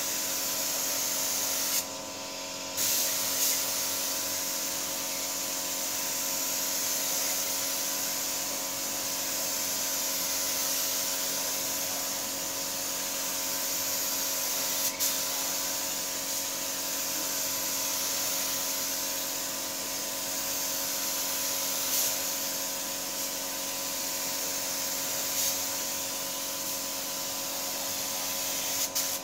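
Compressed-air paint spray gun hissing steadily as it sprays paint onto a car body, over a steady hum. The hiss breaks off for under a second about two seconds in.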